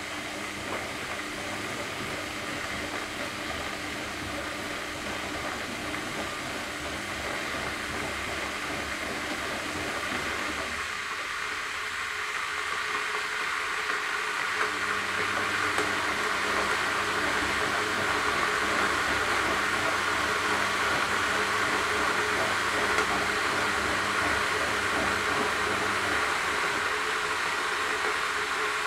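Electric kettle heating water: a steady hiss that slowly grows louder, over a low appliance hum.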